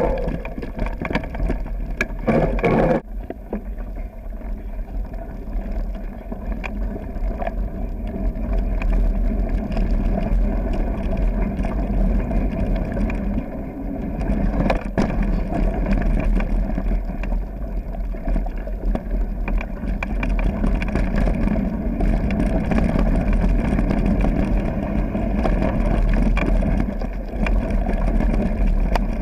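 Mountain bike riding fast down a gravel and dirt trail, heard through the rider's action camera: steady rumble of tyres on the trail and the bike rattling, with wind buffeting the microphone and a few sharp knocks from bumps. It is louder for the first three seconds, dropping off abruptly.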